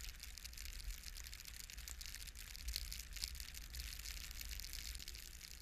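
Wind buffeting the microphone in a blizzard, with a steady crackling hiss of snow.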